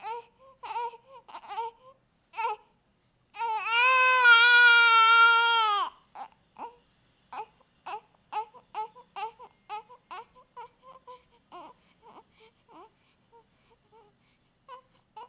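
A baby crying: short fussing cries, then one long, loud wail about three to six seconds in, followed by a run of short sobs that grow fainter toward the end.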